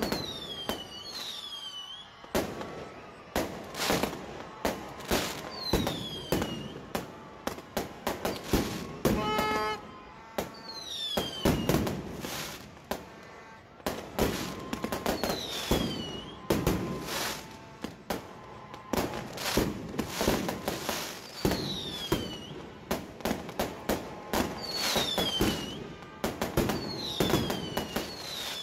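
Aerial fireworks display: a rapid, irregular series of shell bursts and bangs. High whistles that fall in pitch recur every few seconds.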